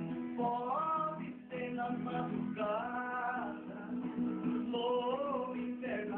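An acoustic guitar strummed with steady chords while a man sings a melody over it in phrases of about a second each.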